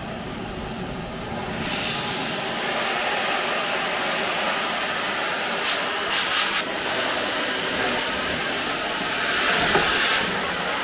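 A steady hissing rush of noise that gets louder about two seconds in and holds, with a short run of clicks around six seconds in.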